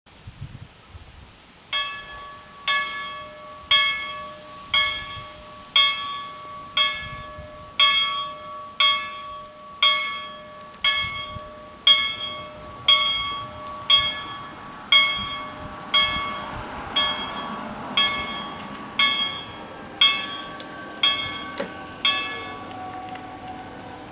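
Level-crossing warning bells striking about once a second, each stroke ringing out with several overtones and fading, starting a couple of seconds in and stopping shortly before the end once the barriers are down: the signal that a train is approaching.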